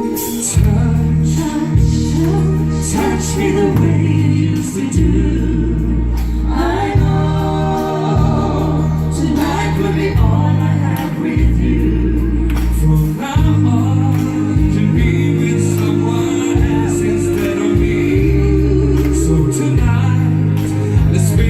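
Live band music with singing over a steady bass line.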